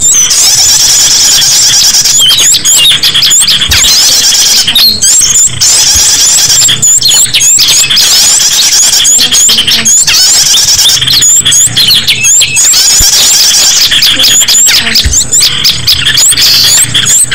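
Shrill, dense small-bird calls from a bird-trapping lure recording: many overlapping quick chirps and hooked notes. They come in runs with short breaks every couple of seconds.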